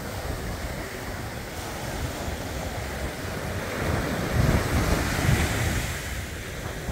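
Sea waves breaking and washing up a sandy beach, with wind buffeting the microphone. The noise surges louder about four seconds in, then eases.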